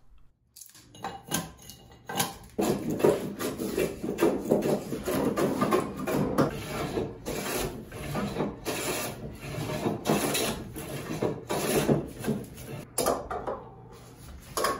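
A few hatchet blows on green white oak near the start, then a hand plane pushed in quick repeated strokes along the board's edge, its iron shaving the wood. The strokes ease off near the end.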